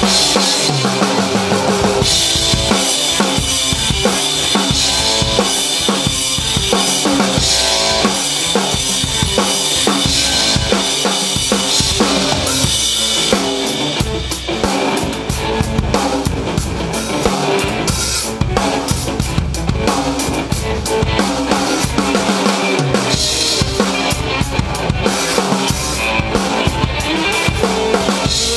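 Drum kit played in a steady rock groove, with kick, snare and cymbals, alongside an electric guitar. A bright cymbal wash carries the first half, then gives way to sharper, separate hits.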